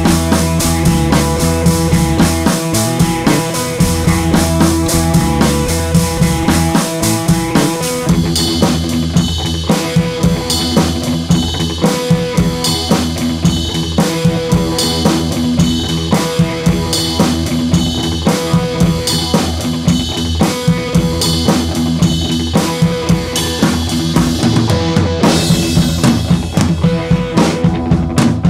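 Music with a steady drum-kit beat, growing fuller about eight seconds in.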